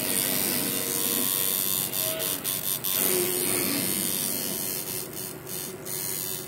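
Tattoo machine running steadily, its needle working ink into the skin of a forearm, with a few short dips in level.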